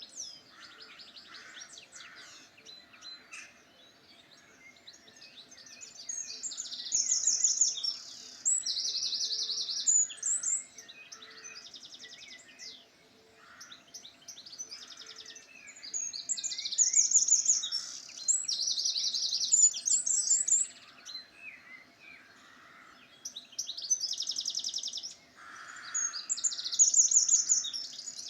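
Songbirds singing: a loud song of fast, buzzy trills comes three times, about every eight to ten seconds, with quieter chirps and warbles from other birds in between.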